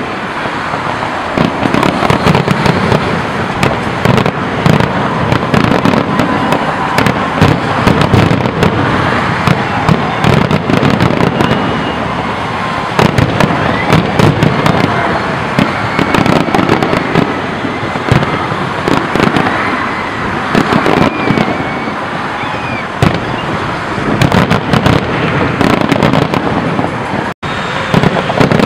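Fireworks display, aerial shells bursting in rapid succession: a dense, continuous barrage of bangs and crackling. The sound drops out for an instant near the end.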